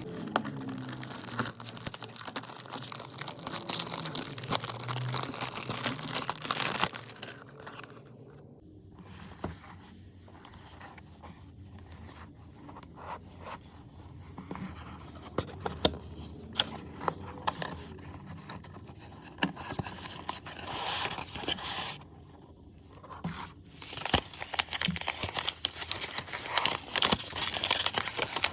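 Perfume packaging being unwrapped by hand: a long stretch of loud tearing and crinkling, then quieter handling with scattered clicks and taps, and loud crinkling again near the end.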